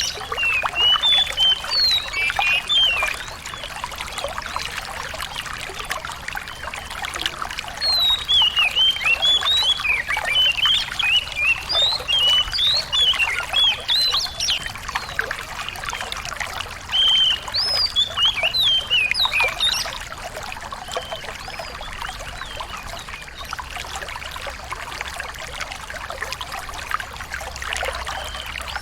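A small songbird singing short, sharp, rapid chirps and trills in bursts over a steady trickle of running water. The song stops about two-thirds of the way through, leaving only the water, and starts again just at the end.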